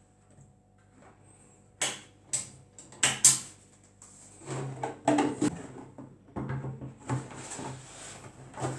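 Clicks and clunks of an Adler Gabriele 10 manual typewriter being handled: a few sharp knocks about two to three seconds in, then a run of busier, irregular clattering.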